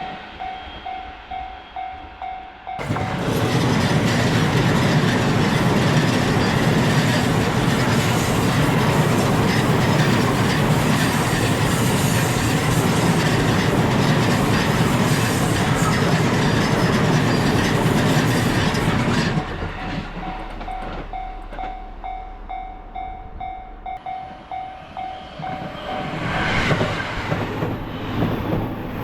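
A Japanese level-crossing warning bell rings in repeated dings. After about three seconds it is drowned by a train passing close by, loud for some sixteen seconds. Once the train has gone the bell is heard again, and train noise swells up once more near the end.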